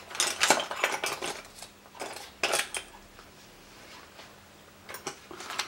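Metal hand tools clinking and clattering as they are handled and moved about, in a few short flurries of sharp clicks with quiet gaps between.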